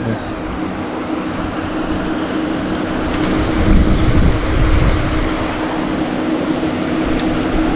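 Steady mechanical hum with two held tones under a noisy hiss. About three and a half seconds in, a low buffeting rumble rises for a second or so as the spinning rod is swung for the cast.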